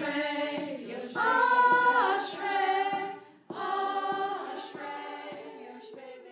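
A choir singing unaccompanied, with sustained notes in phrases and a brief break between them, fading out near the end.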